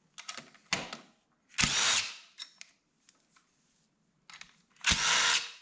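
Handheld power tool run in two short bursts about three seconds apart, spinning out two 8 mm bolts, with a few light clicks of the socket going onto the bolt before.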